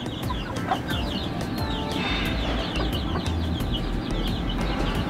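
Brahma chickens making soft clucks and many short, quick high chirps.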